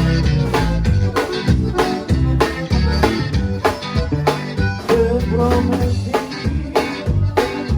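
Live conjunto band playing an instrumental passage with a steady beat: button accordion over bajo sexto strumming, bass and drums.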